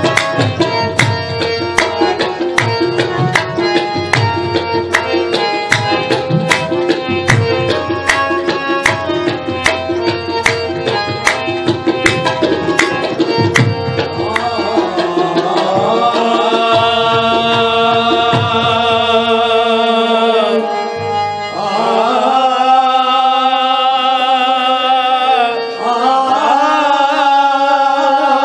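Qawwali music: tabla keeping a steady beat under held melodic notes. About halfway the drumming drops away and long, wavering sung notes take over the melody.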